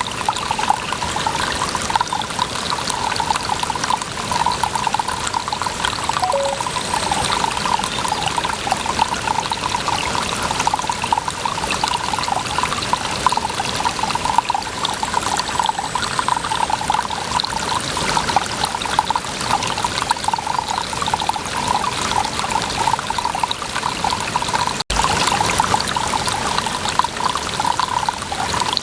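Water running and trickling steadily with a constant splashing pour. It cuts out for an instant about 25 seconds in.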